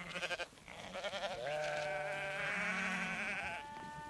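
A flock of sheep bleating, several calls overlapping, some with a quavering wobble, and one longer, steadier bleat starting near the end.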